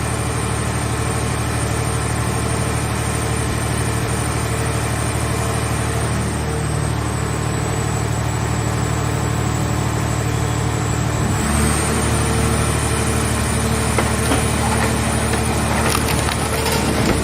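Hydraulic scrap-car baler running steadily under load. About eleven seconds in its pitch shifts and the sound grows noisier. Near the end come crackling and creaking as the car body's sheet metal is crushed in the press.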